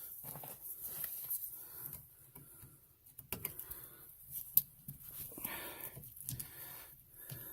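Small clicks and taps of tools and wires being handled while wire leads are fastened onto the terminals of a well pressure switch, with one sharper click about halfway through and a short rustle after it.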